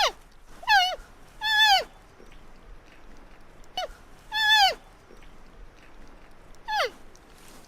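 Giant panda cub squealing: about five short, high-pitched calls at uneven intervals, each rising and then falling in pitch, one of them very brief.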